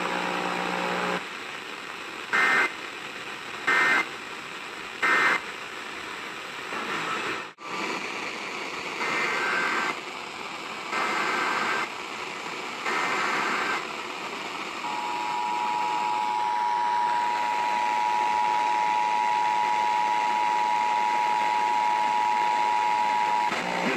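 Emergency Alert System data bursts over steady radio hiss: three short end-of-message bursts, then three longer header bursts announcing the next warning, then the two-tone EAS attention signal held steady for about nine seconds.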